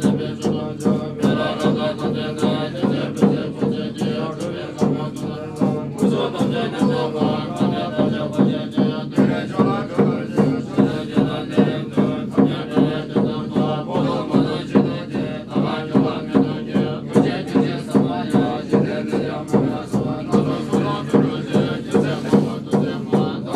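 Buddhist monks chanting together in low voices over a steady beat struck about twice a second, part of a prayer and blessing ceremony.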